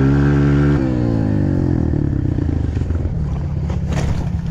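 Pit bike engine held at high revs, then easing off about a second in and running lower and rougher while riding through snow. A few sharp knocks near the end.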